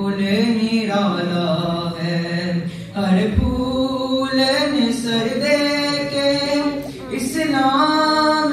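A boy's solo voice chanting a Shia noha, a mournful unaccompanied lament, into a microphone, with long held and gliding notes broken by short pauses for breath.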